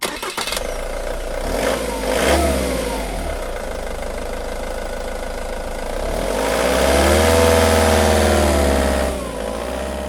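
Vehicle engine running and revving up twice, the pitch rising and falling about two seconds in and again more strongly later on, with a sharp click at the very start.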